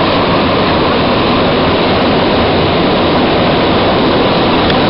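Steady, loud rushing noise inside a Bombardier MR-73 Montreal Metro car as the rubber-tyred train runs through a tunnel.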